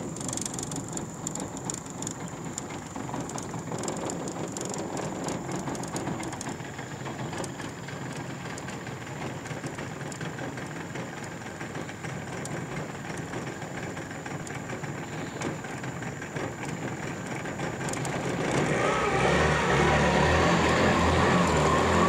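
A boat motor running steadily at idle. It grows louder about four seconds before the end, and a rising whine comes in as it picks up speed.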